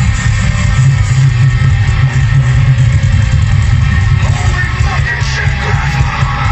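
Heavy metal music played loud, with electric guitars over a heavy bass low end.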